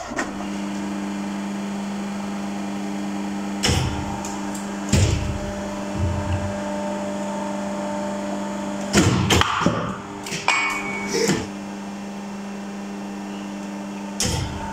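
Hydraulic press's motor and pump humming steadily, with a handful of sharp knocks and clatters as copper blanks are handled and set on the press.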